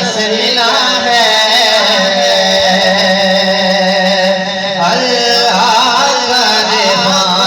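A solo voice singing a slow, ornamented melody with wavering, bending lines over a steady held drone, a new phrase beginning about five seconds in.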